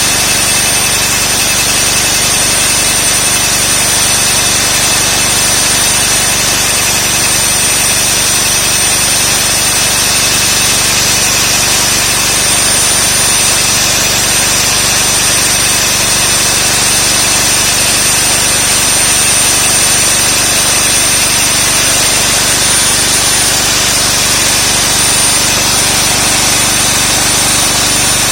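Concrete core drill running steadily, its bit cutting into concrete: a loud, even grinding noise with a high steady whine over it.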